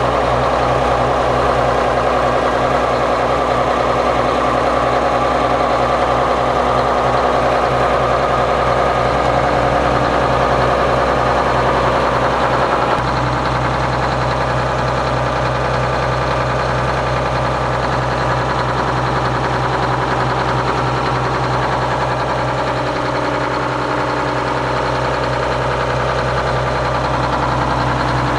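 Marine Detroit Diesel engine running steadily in the engine room, just started after its transmission safety switch was bypassed with a jumper wire, a sign that the switch or its corroded contacts kept it from starting. The sound shifts and drops slightly about thirteen seconds in.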